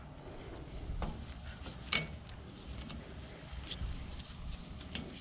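Light metallic clicks and taps from handling a hydraulic hose fitting and tools, with one sharper ringing clink about two seconds in, over a low steady rumble.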